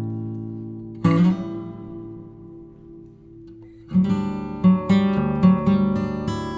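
Background music on acoustic guitar: a strummed chord rings out and fades, a second chord is struck about a second in and dies away, then a steady rhythmic strumming pattern starts about four seconds in.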